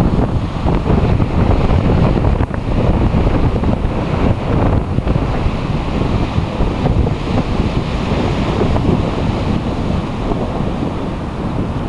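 Wind blowing on the microphone, a steady low rumble, over the wash of sea waves on the shore.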